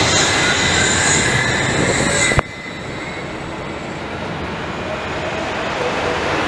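Wuppertal Schwebebahn suspended car passing close, a running rumble with steady high-pitched whining tones over it. After about two and a half seconds it cuts off sharply, giving way to a quieter steady rumble that slowly grows louder.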